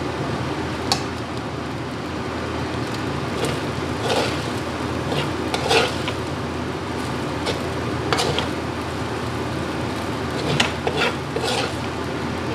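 A spatula scraping and knocking against a metal wok at irregular intervals as fried rice is stir-fried, over a steady frying hiss.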